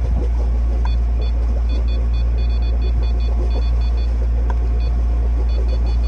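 Sailboat's inboard engine running steadily under way, a constant low rumble.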